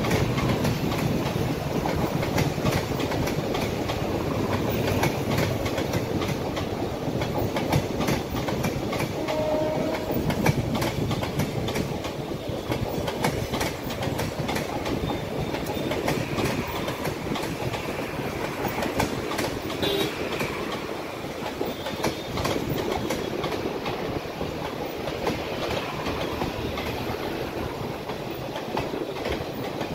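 Passenger coaches of an Indian Railways express rolling past, their wheels clattering in a steady clickety-clack over the rail joints.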